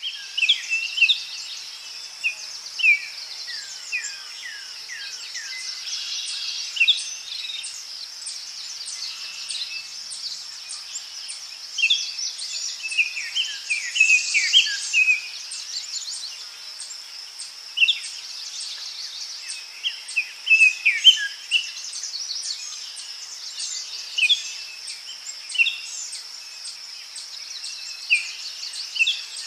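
Birds chirping in quick, irregular bursts of short notes that mostly slide downward in pitch, over a steady high-pitched drone.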